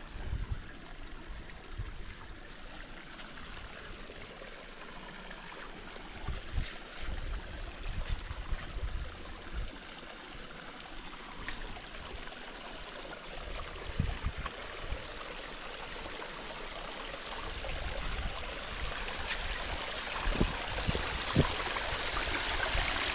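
Spring water trickling and running steadily, with gusts of wind rumbling on the microphone; the water grows louder over the last few seconds.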